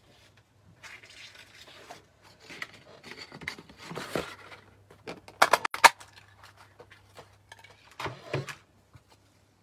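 Cardstock rustling as it is handled, then a cluster of sharp clicks about five and a half seconds in as a paper punch cuts a scalloped oval from red cardstock, and a short rustle near the end as the cut piece is picked up.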